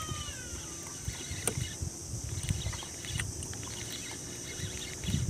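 Water slapping against the hull of a small boat, with uneven low buffeting. There is one sharp click about a second and a half in and scattered light ticks as the rod and spinning reel are worked.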